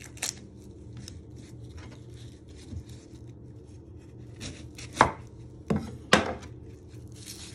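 Kitchen knife chopping the ends off a shallot on a wooden chopping board: a sharp knock of the blade against the board near the start, then three more about five to six seconds in.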